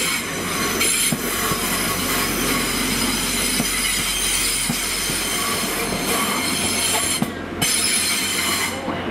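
Class 175 diesel multiple unit running past along the platform, its wheels squealing steadily in a high pitch over a low hum, with a few light knocks from the rails. The squeal breaks off briefly about seven seconds in.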